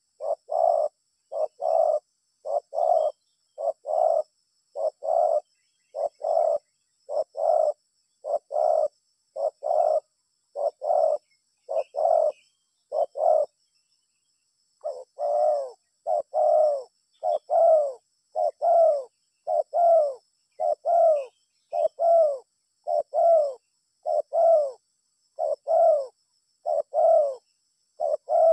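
Spotted dove (tekukur) cooing over and over, short two-part coos about one a second, with a brief pause about halfway through.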